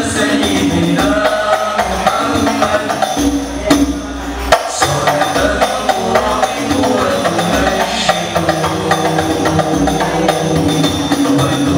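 Al-Banjari sholawat: a group of young male voices singing a devotional Islamic song over the interlocking, steady rhythm of terbang hand frame drums.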